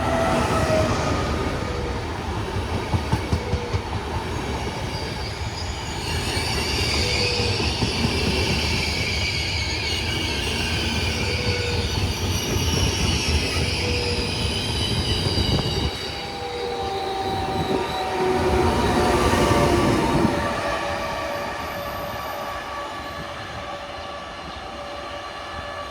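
Train running through a station, its steel wheels squealing in thin high tones over a steady rumble. A few sharp clicks come from the wheels about three seconds in.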